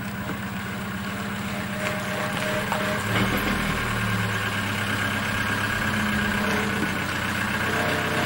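Vehicle engine idling steadily, a little louder from about three seconds in.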